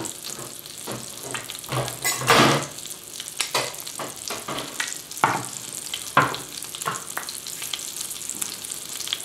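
Floured cod fillet frying in olive oil and foaming butter in a pan: steady sizzling with scattered crackles and pops, and a louder burst about two seconds in.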